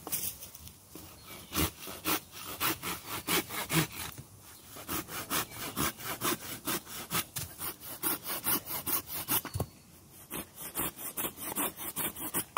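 Silky BigBoy folding saw cutting through a dead branch, in quick back-and-forth strokes at about three a second. The strokes stop briefly near the end, then start again.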